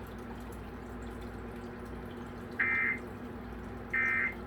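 Emergency Alert System (SAME) end-of-message data bursts: two short, high-pitched digital bursts a little over a second apart, starting about two and a half seconds in. They sound over a steady low electrical hum and signal the end of the alert.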